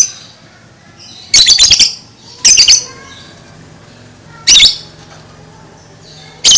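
Lovebird giving shrill chattering 'ngekek' calls in four separate bursts, the longest a rapid run of notes about a second and a half in, the others short.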